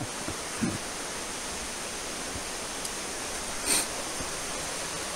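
Steady rushing of a creek and waterfall, an even hiss. One brief scuff stands out about three and a half seconds in.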